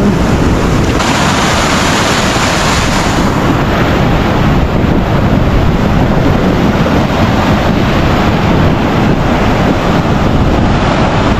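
Ocean surf breaking and washing over the sand around the wader's legs, with wind rumbling on the microphone. A louder rush of breaking water swells about a second in and fades a couple of seconds later.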